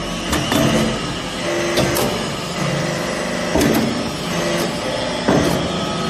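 Vertical hydraulic press running: the hydraulic unit hums with tones that step up and down in pitch as the ram moves down into the mould. Several sharp metallic clunks come through it.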